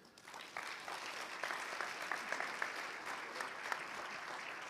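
Audience applauding, a dense patter of clapping that builds within the first half second and then holds steady.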